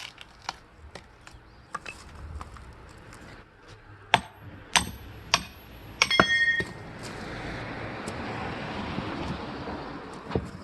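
Metal striking metal while splitting firewood: three sharp ringing strikes about half a second apart, then a quick cluster of ringing clinks, followed by a few seconds of rustling noise.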